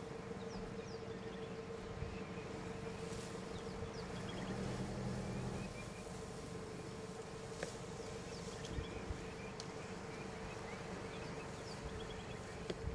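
Steady insect buzzing in the bush, one even droning tone throughout, with a few faint bird chirps scattered through it.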